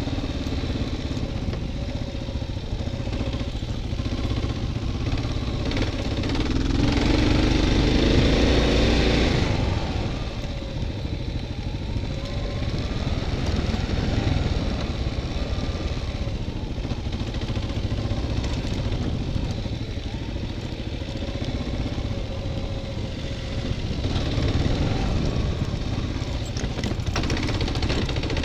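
Dual-sport motorcycle engine running as the bike is ridden off-road, heard from a camera mounted on the bike. It revs up louder about seven seconds in and eases off a couple of seconds later. The pitch then rises and falls with the throttle, and it swells again near the end.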